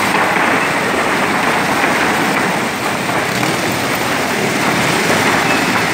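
Crowd applauding, a loud, steady clatter of many hands.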